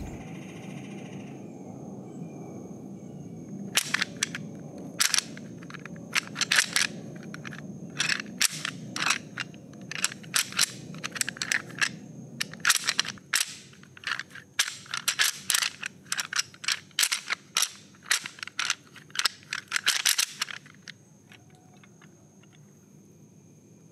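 A long, irregular run of sharp, close clicks and snaps, dozens of them, starting about four seconds in and stopping a few seconds before the end, over a faint steady high tone.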